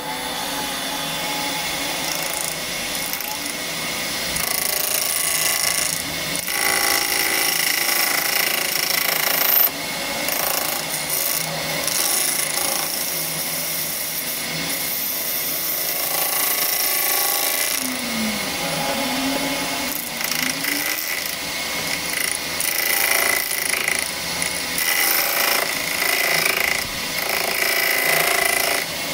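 Metal lathe running, its cutting tool machining a flour-mill bearing cup held in a four-jaw chuck: a steady scraping hiss over the hum of the spinning chuck.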